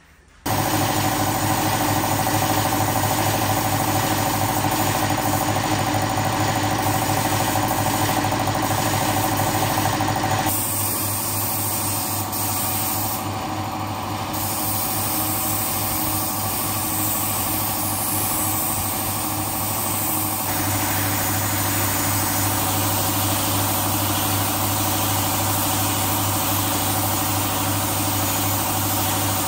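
Piston air compressor running steadily under the hiss of a compressed-air paint spray gun. The sound shifts abruptly about ten seconds in and again about twenty seconds in.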